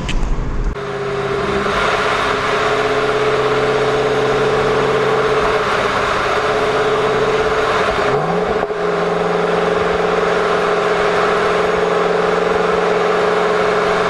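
Ford Shelby GT500's supercharged V8 cruising at a steady engine speed, heard from inside the cabin with road and tyre noise. The engine note dips and changes pitch briefly about eight seconds in.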